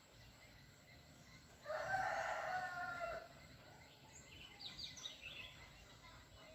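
A loud, drawn-out bird call starts a couple of seconds in and lasts about a second and a half. Quieter, high chirping from small birds follows.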